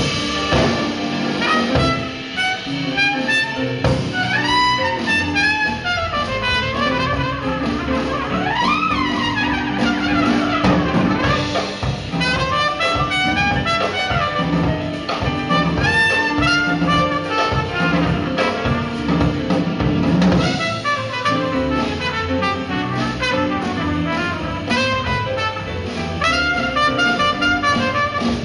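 A band playing jazz with brass instruments leading over a rhythm section. About a third of the way through, one line slides up in pitch and back down.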